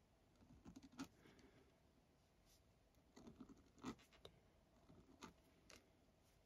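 Faint, scattered scratches and light ticks of a 0.1 mm fine-liner pen tip on paper, drawing small circles.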